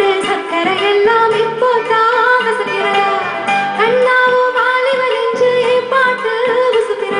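A woman singing a Malayalam song into a microphone, holding long notes with gliding ornaments over keyboard and band accompaniment, heard off a television broadcast.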